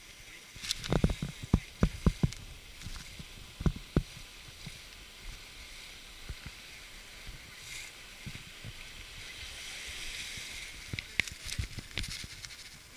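Knocks and rubbing of a hand gripping an inflatable boat's rubber tube right at the microphone, over a steady hiss of surf and foaming water. The knocks come in a cluster in the first four seconds and again near the end.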